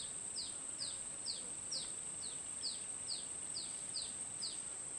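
A bird repeating a short, high, falling call about twice a second, evenly spaced, over a steady high-pitched whine.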